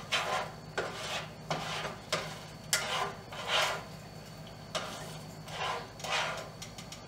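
Plastic slotted spatula scraping and stirring eggs and vegetables in a nonstick frying pan, in repeated short strokes about one or two a second.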